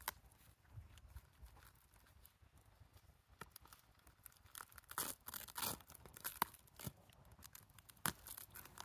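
Clear plastic wrapping being picked at and cut open with a small knife: scattered crinkles and short, sharp tearing crackles, more frequent in the second half.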